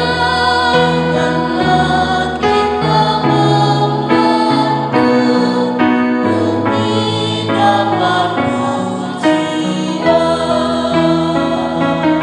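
A small family vocal group of a man, a woman and two boys sings a Christian song in harmony over keyboard accompaniment.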